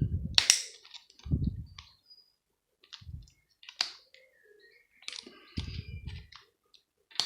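Scattered sharp clicks and dull knocks of small plastic and metal parts being handled and bent as a plastic plug adaptor is taken apart.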